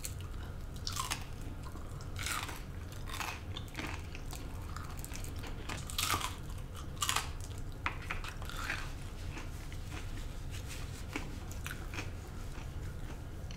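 Close-miked chewing of a battered deep-fried pickle: crisp crunches about once a second, thinning out in the second half as it is chewed down, over a steady low hum.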